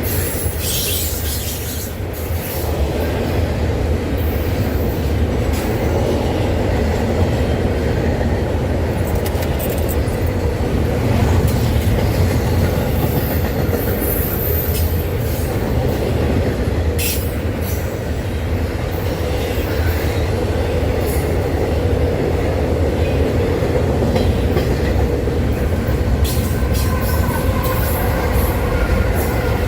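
Norfolk Southern freight train rolling past: a steady rumble of wheels on rail, with a few sharp clacks from the rail joints.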